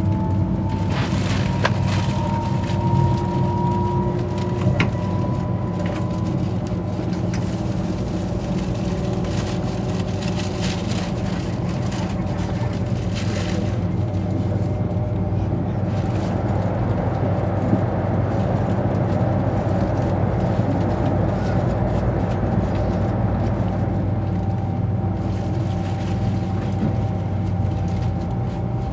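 ICE 3 high-speed electric train running and gathering speed, heard from inside the passenger car: a steady rumble of wheels on rail. A thin whine rises slowly in pitch over the first several seconds and settles into a steady tone later on, with scattered sharp clicks as the wheels cross rail joints and points.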